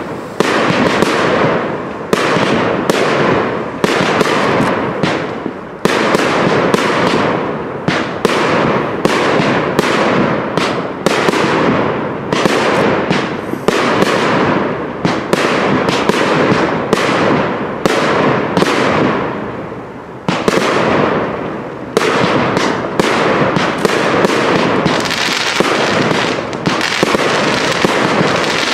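Fireworks display: a dense, unbroken run of sharp bangs from aerial shells, roughly two a second, with a brief lull near the end.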